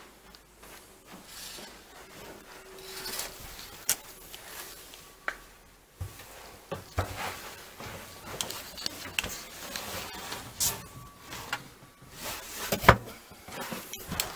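Handling noises: rubbing and scraping against wood and carpet, with scattered clicks and light taps and one sharp knock near the end.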